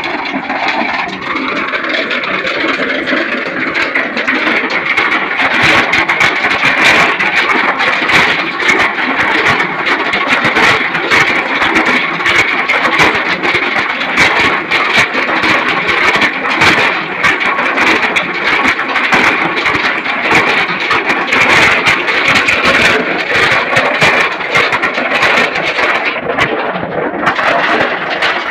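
Engine-driven ore-grinding drum mill running steadily, a motor drone under constant rapid clattering of the ore and grinding media tumbling in the drum as it grinds gold ore to slurry.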